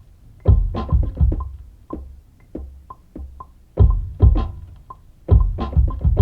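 Instrumental beat: heavy bass-drum hits and short percussion strikes with sparse plucked synth notes. The heavy drums drop out for about two seconds near the middle, leaving only the plucks.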